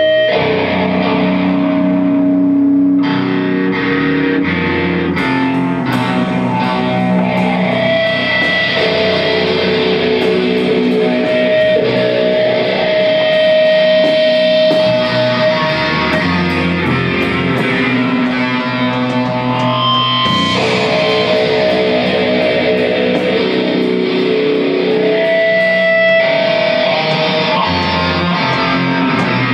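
Live amplified music led by electric guitar through effects, holding long sustained notes that shift every few seconds, with a crisp ticking beat joining about five seconds in.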